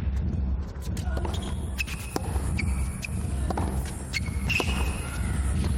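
Tennis ball bouncing and shoes squeaking on the court, as sharp irregular knocks and short high squeaks, over indistinct crowd voices and a low steady rumble.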